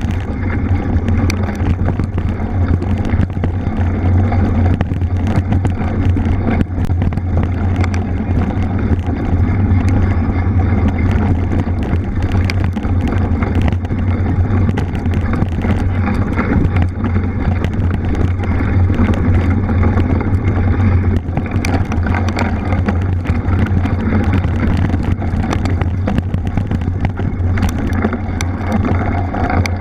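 Wind rushing over the microphone during a mountain-bike ride, a steady low rumble with frequent short knocks and rattles from the bike on a rough trail.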